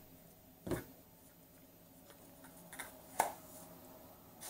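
A few short clicks and knocks of plastic and rubber parts being handled: the drain plunger's rubber attachment cups and plastic pump, with a sharp tap about a second in and another, the loudest, about three seconds in.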